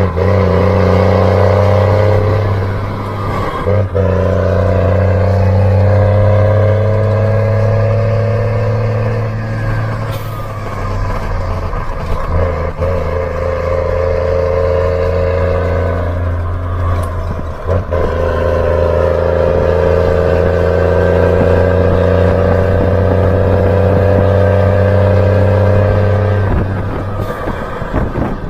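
Heavy truck engine pulling hard through the gears: its pitch climbs slowly, drops at each gear change and climbs again, several times over.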